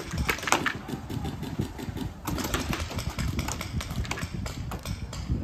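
Paintball markers firing in rapid, irregular volleys, a quick run of sharp pops several times a second, over a low rumble.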